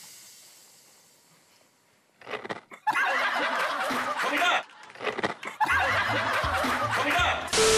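A hush for about two seconds, then a group bursting into loud laughter, with comic background music coming in during the second half.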